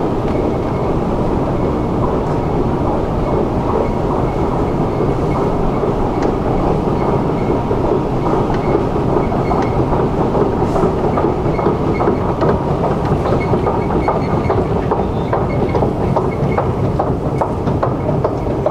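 Metro escalator running as it carries a rider up: a steady mechanical rumble from the moving steps and drive. Light rattling clicks become more frequent in the second half as the top landing nears.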